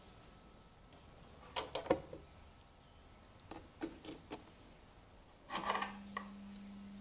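Small clicks and taps of crocodile clips being fastened to copper wire on a plastic tub. About five and a half seconds in, a short rush of noise, then a steady low hum starts as the 12 V 5 A power supply for rust-removal electrolysis comes on.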